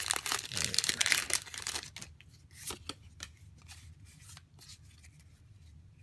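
Foil wrapper of a Pokémon card booster pack crinkling and tearing open for about the first two seconds, then quieter scattered clicks as the stack of cards is handled and slid apart.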